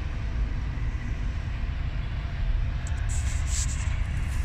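Class 37 diesel locomotive D6948 approaching, its English Electric engine giving a steady low rumble, with a short hiss about three seconds in.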